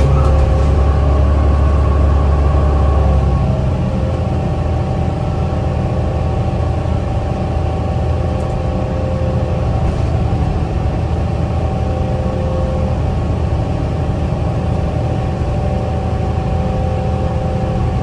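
Inside the cabin of a 2010 New Flyer DE40LFA diesel-electric hybrid bus under way: the Cummins ISL diesel and drivetrain give a steady low rumble with a steady whine over it. The rumble eases a little about three and a half seconds in.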